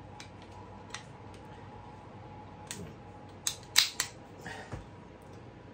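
Steel slide and action of a Makarov 9x18 pistol being worked by hand: a few light clicks, then a quick run of sharp metallic clacks about three and a half to four seconds in.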